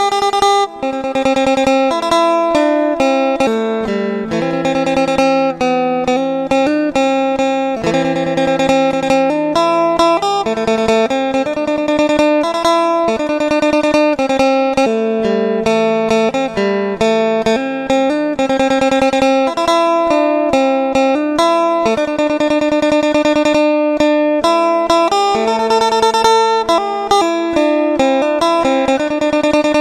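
Phin, the Isan plucked lute, playing a lively melody of quickly repeated picked notes over sustained lower notes.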